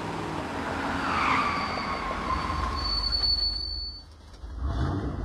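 Police sedan's tyres squealing on pavement as it drives in hard, a high sustained squeal over the low rumble of the car, dropping away about four seconds in before a low rumble returns near the end.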